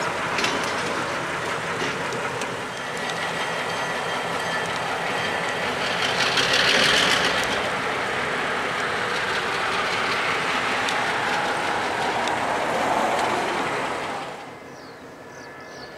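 Pair of EMD GP15-1 diesel switchers working hard as they pull a cut of loaded coke hoppers, with engine rumble and the wheels clattering over the track, loudest about halfway through. The sound falls away abruptly a second or two before the end, leaving faint bird calls.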